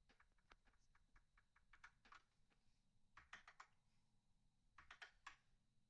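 Faint typing on a mechanical keyboard with Gateron G Pro 3.0 Red switches: irregular key clacks, with quicker runs of keystrokes about three and five seconds in.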